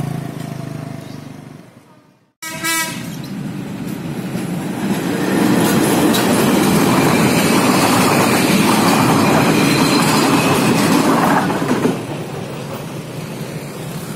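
A scooter's engine fades away, then a short horn blast sounds about two and a half seconds in. A train passes close by, its wagons' wheels clattering and rumbling loudly on the rails for about eight seconds, then easing off about twelve seconds in as it moves away.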